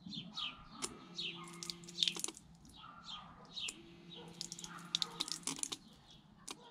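Mini DC water pump humming steadily twice, each time for about a second and a half, as the relay switches it on and off when a hand passes the infrared sensor. Birds chirp throughout in short, repeated falling notes.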